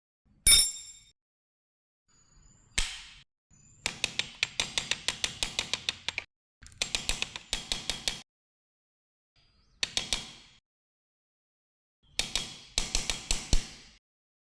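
Metal parts and hand tools clinking during assembly work: a single ringing clink, then several bursts of quick clicking at about five clicks a second, with a few lone ticks between them.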